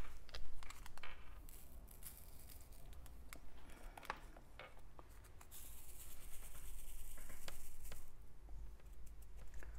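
Small plastic diamond-painting drills poured from an organza bag into a ridged plastic sorting tray: scattered light clicks, then about two and a half seconds of dense rattling from roughly the middle on as the tray is shaken to line the drills up in its grooves.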